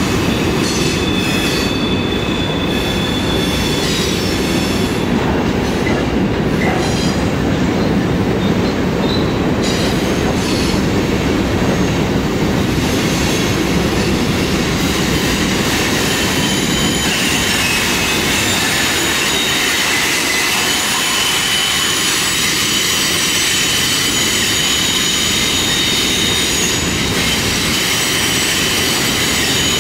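Freight cars rolling past on curved track: a steady rumble of steel wheels on rail, with high steady wheel squeal from the flanges on the curve and a few clicks over rail joints early on. The rumble eases about halfway through while the squeal carries on.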